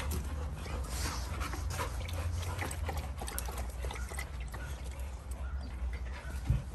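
American bully dogs moving about close by on dirt, sniffing and breathing, with scattered short scuffs and clicks. A steady low rumble runs underneath, and one sharp thump stands out near the end.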